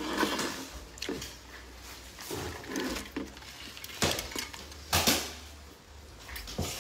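Quiet handling of a plastic drink tumbler, with two sharp clicks of its lid and straw cap about four and five seconds in.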